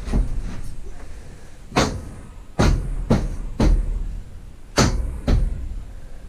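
A series of sharp knocks and bangs at irregular intervals, about six or seven in all, each with a low boom behind it.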